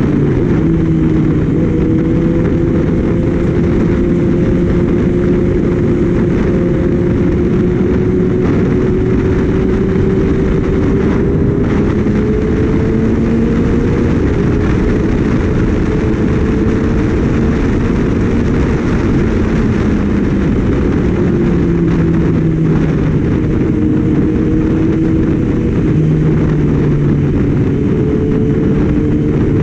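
Kawasaki Ninja ZX-6R inline-four running at speed under heavy wind rush on the microphone, the engine note drifting slowly up and down with the throttle.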